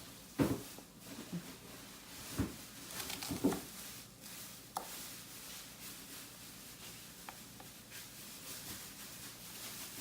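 A few soft knocks on a cutting board, with faint rubbing in between, as a shallot is peeled and cut with a kitchen knife.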